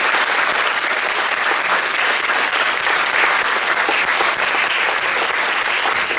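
Audience applauding steadily at the end of a song, a dense even clapping with no break.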